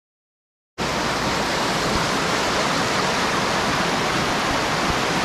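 Silent at first, then about a second in a loud, steady rush of river water pouring over rocks in white-water rapids starts suddenly.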